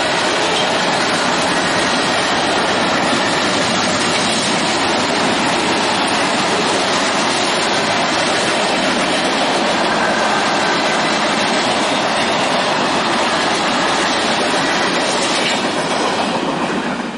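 Norfolk Southern freight train's tank cars and coil cars rolling past at speed: a steady, loud rolling noise of steel wheels on rail, dropping away near the end as the last car clears the crossing.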